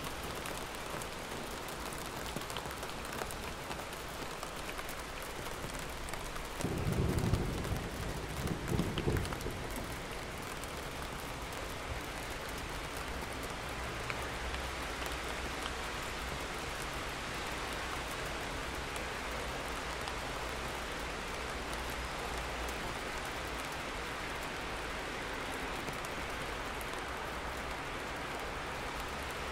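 Steady rain, with a low rumble of thunder about seven seconds in that swells twice over some three seconds and then fades back into the rain.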